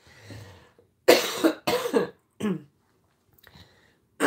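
A woman with a cold coughing: a quick fit of three coughs about a second in, after a breathy intake.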